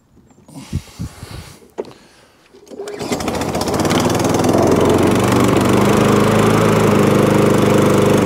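An MTD push lawnmower's small petrol engine being pull-started: the recoil cord is yanked with a brief rattle, and the engine catches about three seconds in and settles into a steady run.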